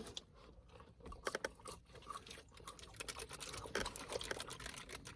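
A person chewing food close to the microphone, with scattered small crunches and clicks.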